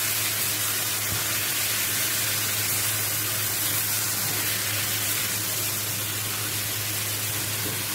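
Chicken pieces with tomato sizzling in a stainless steel pot as they are stirred with a plastic spatula: a steady hiss with a low hum underneath.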